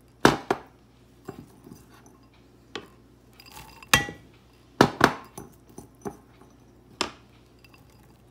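Frozen corn kernels being tipped from a container into a metal pot: about a dozen irregular sharp clinks and knocks as the kernels and the container hit the pot, the loudest about four and five seconds in.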